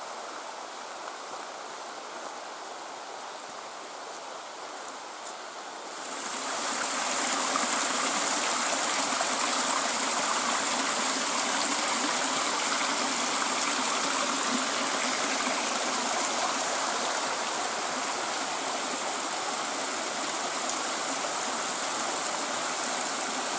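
Kleine Ohe mountain stream rushing. About six seconds in the rush becomes suddenly much louder and brighter, and it stays that way.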